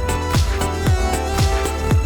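Electronic background music with a steady kick drum, about two beats a second, under sustained synth tones.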